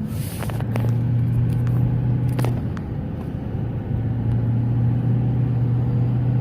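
Ford 6.4 L Power Stroke V8 turbodiesel running under light load below 2,000 RPM, a steady low drone, with brief clicks near the start and about two and a half seconds in. The turbos make around 20 psi of boost while the truck pulls weakly, which the owner wonders is a sign of an exhaust leak.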